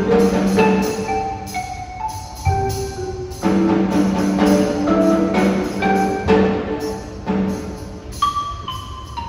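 Percussion ensemble playing: marimbas and other mallet instruments sound sustained chords and a melody line, with a few low drum strokes underneath.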